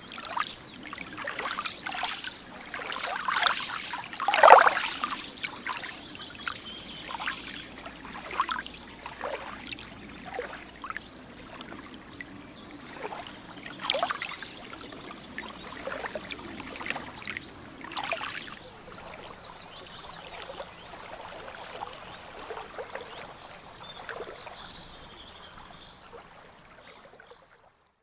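Lake water lapping and trickling in small, irregular splashes over a soft steady wash, loudest about four and a half seconds in, then fading out at the very end.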